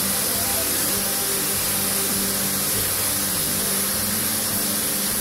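Steady hiss of a compressed-air paint spray gun spraying automotive paint onto a car body.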